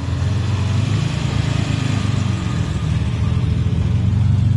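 Ferrari 250 GT Lusso's V12 engine idling, a steady low rumble of rapid firing pulses that grows a little louder near the end.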